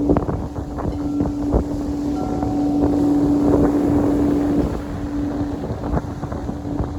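A singing bowl ringing with one steady low tone and fainter higher overtones, the tone weakening a little after about four and a half seconds. Wind buffets the microphone throughout, with scattered short knocks.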